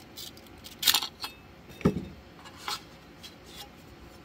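Metal scraper blade scraping and prying a freshly printed plastic part off a 3D printer's bed: a series of sharp scrapes and clicks, the loudest about a second in, with one duller knock near the two-second mark.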